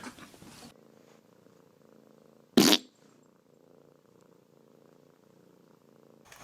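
A cat purring faintly and steadily, broken about two and a half seconds in by one short, loud burst of sound.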